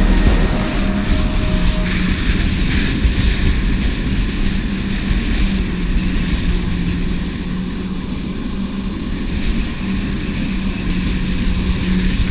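A Yamaha personal watercraft (jet ski) engine running steadily at cruising speed with a constant droning note. Heavy wind rumble on the microphone and the rush of water and spray off the hull run under it.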